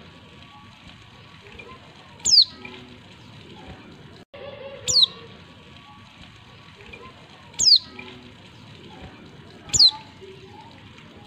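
Female white-eye (pleci) calling: four short, sharp notes, each sweeping steeply down in pitch, repeated about every two and a half seconds.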